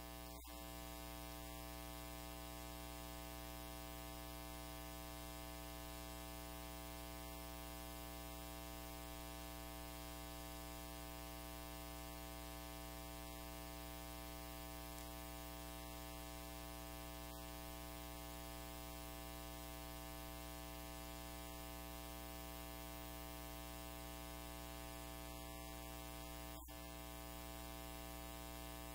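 Steady electrical hum with many evenly spaced overtones, unchanging throughout, with a brief dropout about half a second in and another near the end.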